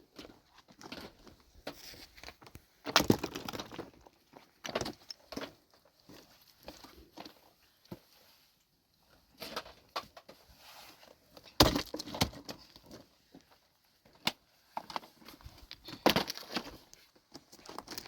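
Irregular knocks, clatters and scrapes with short quiet gaps, the sharpest knocks about three, twelve and sixteen seconds in.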